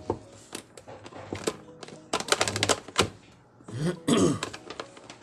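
Sharp plastic clicks and knocks from a blender's plastic base being handled and turned over. A quick run of clicks comes about two seconds in, and a short scrape near the four-second mark. Soft background music plays underneath.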